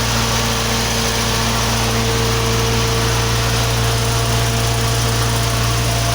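Bedford diesel engine of a 15 kW generator set running steadily at constant speed, a low even drone with a steady higher whine over it.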